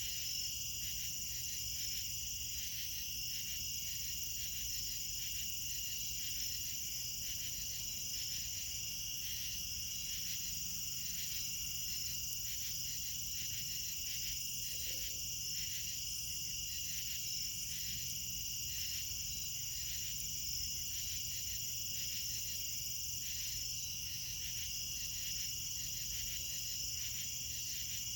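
Late-summer night insect chorus of crickets: several steady high-pitched trills overlapping, with a pulsing chirp repeating a little more than once a second over them.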